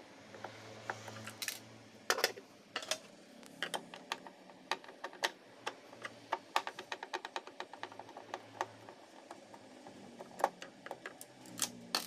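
Screws being worked out of a Brother MFC-J3530DW printer's plastic side panel with a hand screwdriver: a run of short, sharp clicks and taps, densest in the middle, with a few louder knocks as screws and the tool come down on the desk.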